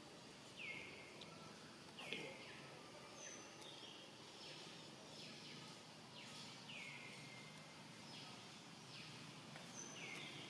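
Faint, repeated bird calls, each a short note that drops in pitch and then holds briefly, coming about once a second, with a single sharp click about two seconds in.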